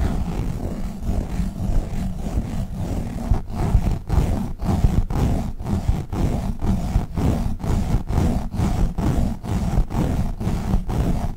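Globbles, sticky squishy toy balls, squished and rubbed against the microphone, giving a loud, deep rumble broken by short gaps about twice a second.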